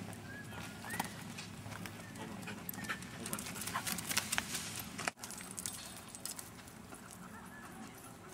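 A dog panting close by, with scattered scuffs and clicks that are busiest around the middle.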